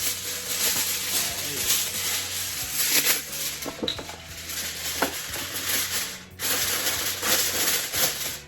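Aluminium foil crinkling and rustling, a steady dense crackle as it is pulled out and pressed down over a pan, with a brief pause near the end.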